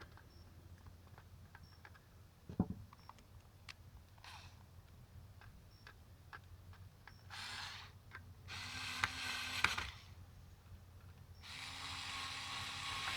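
Small electric screwdriver running in three short bursts, the last the longest, driving screws into a model car's chassis. Before the bursts come light clicks and a knock from handling small parts.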